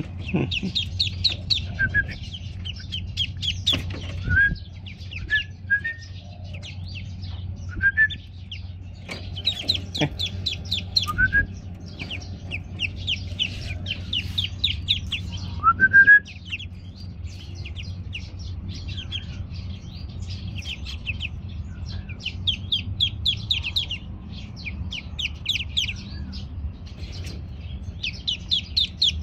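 Newly hatched ducklings peeping in quick runs of high chirps, with an occasional single rising peep, over a steady low hum.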